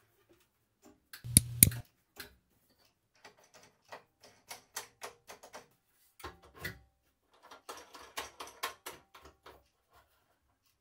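Plastic wheel-cover door and red plastic locking knobs of a Metabo BAS 261 bandsaw being handled. Two sharp clicks with a low knock come about a second and a half in, then a scattered string of lighter plastic clicks and rattles.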